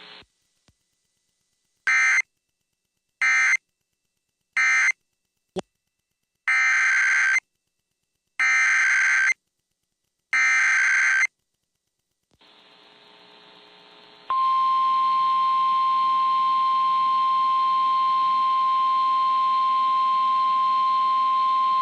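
NOAA Weather Radio emergency alert signals. First come three short bursts of digital data screech, the end-of-message code closing the previous warning. Then come three longer data bursts, the SAME header announcing a new alert, and after a faint hiss a long, steady, single-pitch attention tone that signals the coming warning.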